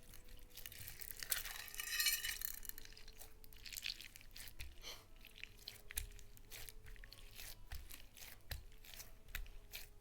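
Slime being worked by hand, with sticky crackling, clicking and popping throughout and a denser crackling rush about two seconds in.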